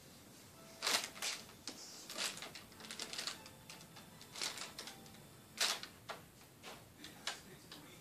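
Crumpled brown packing paper crackling and rustling as a cat shifts, turns and climbs around on it: a run of irregular crinkles, loudest about a second in and again just before six seconds.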